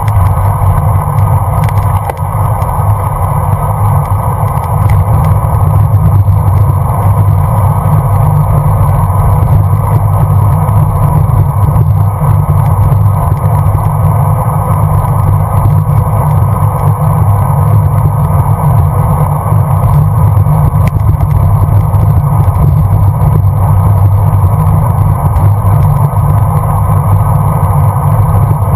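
Loud, steady wind buffeting and road rumble on a bicycle-mounted GoPro camera at riding speed.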